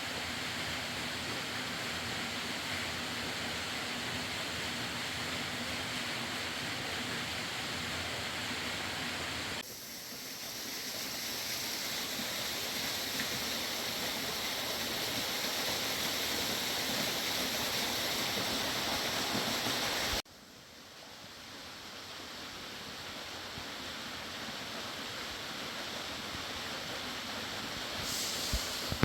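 Fast-flowing river water rushing steadily. It drops away abruptly and builds back up twice, about a third and two thirds of the way through, and a few faint knocks come near the end.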